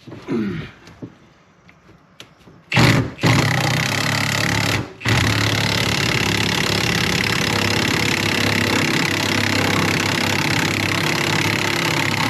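Power tool running hard on a rusted skid-plate bolt: a loud, steady, continuous run starts a few seconds in, stops briefly, then carries on until the bolt comes free.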